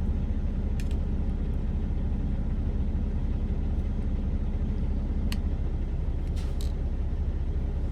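Steady low rumble of an idling truck engine heard inside the cab, with a few light clicks and scrapes of food being mixed in a container.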